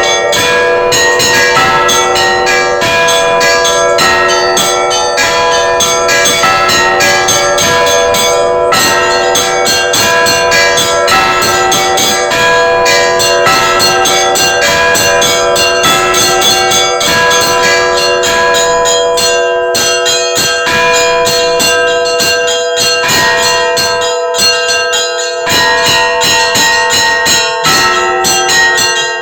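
Orthodox church bells ringing close up in the belfry: a continuous peal of quick strikes on the smaller bells, several a second, over the steady hum of the larger bells.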